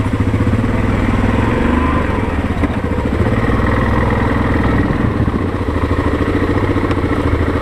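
ATV engine running steadily as the machine moves off and rides along a trail.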